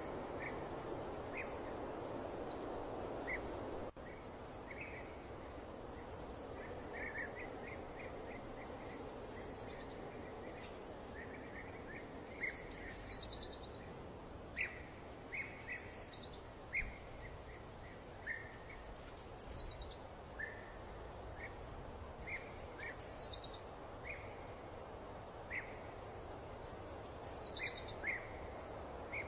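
Birds chirping over a steady background hiss, with short chirps throughout and a high call sweeping downward that repeats every three to four seconds. The hiss is stronger for the first few seconds and drops suddenly about four seconds in.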